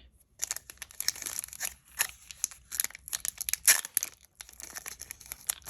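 Foil Pokémon booster pack wrapper being torn open and crinkled by hand: a run of short, sharp crackling tears and rustles, with a brief lull about four seconds in.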